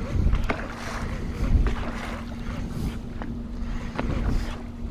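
Wind buffeting the microphone over choppy lake water, with small waves slapping against the boat in short splashes. A steady low hum comes in about half a second in.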